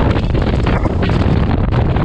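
Wind buffeting the microphone on a speedboat running at speed, a loud, steady rushing with the noise of the boat and the water underneath.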